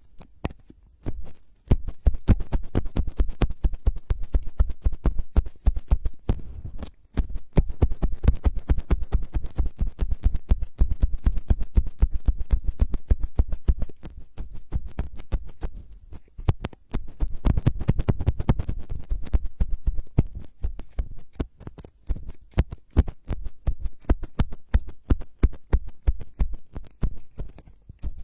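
Fast, irregular tapping and scratching right on a microphone as an ASMR trigger: dense clicks with heavy low thumps, pausing briefly a few times.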